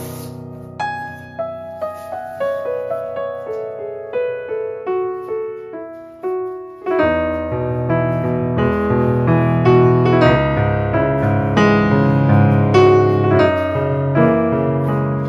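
Background piano music: a gentle melody of separate notes that turns into fuller, louder chords about seven seconds in.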